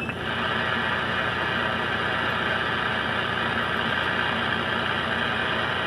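Steady static hiss from a Uniden Bearcat 980SSB CB radio left open on a quiet single-sideband channel, with no station answering, over a low steady hum.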